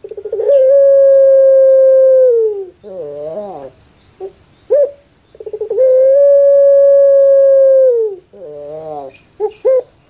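Puter pelung (domestic Barbary dove, Streptopelia risoria) cooing in its long-drawn song, twice: a rapid stuttering start swells into one long, steady coo that falls away at the end. Each long coo is followed by a short wavering phrase and a few brief notes.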